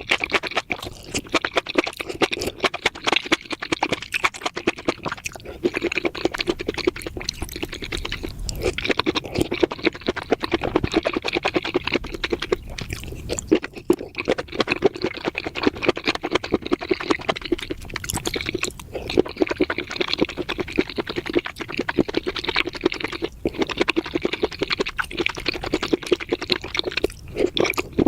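Close-miked wet eating sounds: juicy mushrooms in spicy sauce being chewed and slurped, with a dense stream of wet smacks and clicks throughout.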